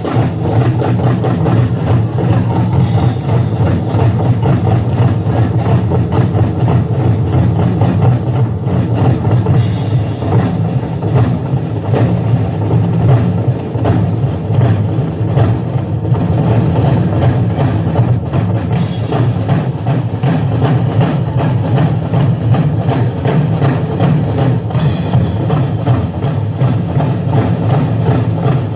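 Loud music driven by a drum kit, with bass drum and snare keeping a steady beat.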